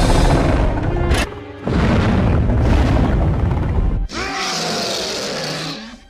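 Animated Tyrannosaurus (Sharptooth) film sound effects: deep booms over music, dropping away briefly a little over a second in. From about four seconds in comes a higher sound with wavering pitch, which fades out at the end.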